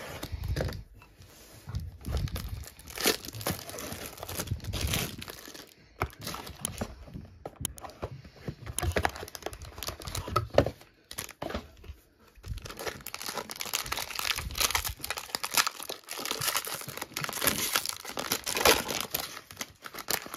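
Cardboard trading-card box being slit open and handled, with scraping, rubbing and light thuds. Then, for the second half, a foil card pack crinkling steadily as it is worked and torn open.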